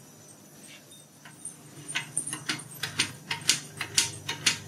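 Light metallic clicks and clinks from hand tools worked on the pressure washer pump, irregular and a few a second, starting about a second and a half in, over a faint steady low hum.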